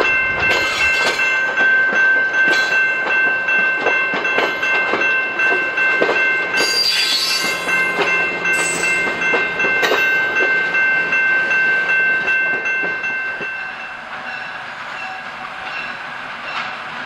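Passenger cars rolling past close by, wheels clacking irregularly over the rail joints under a steady high-pitched ringing tone. About 13 seconds in, the clacking and ringing stop and a quieter, more distant train sound is left.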